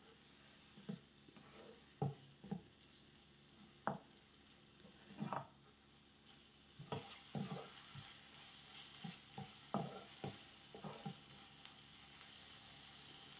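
Food being stirred in a frying pan: about a dozen irregular scrapes and knocks of the utensil against the pan, over a faint sizzle that grows a little stronger about seven seconds in.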